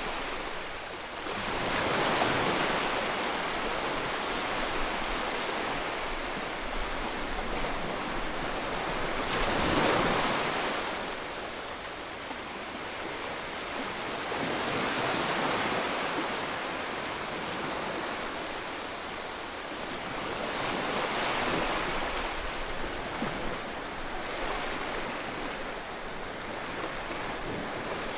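Ocean waves: surf washing in a steady hiss that swells and ebbs in slow surges every several seconds, the biggest about ten seconds in.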